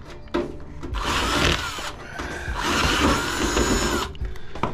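Cordless drill-driver running in two bursts of about a second each, driving the screws of a water cooler's sheet-metal panel. The motor's whine rises as each burst starts.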